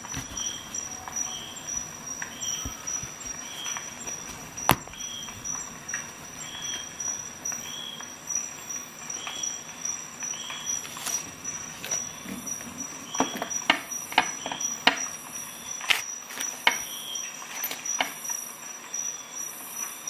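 Handling noise of a Leatherman multi-tool and its bit kit in a nylon sheath: scattered sharp clicks and light rustling, with a run of clicks a little past the middle. Under it a steady high thin whine and a faint short chirp repeating roughly once a second.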